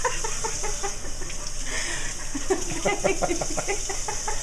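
Baby green monkey (vervet) making rapid series of short, clucking calls, in two quick runs, over water running from the kitchen faucet.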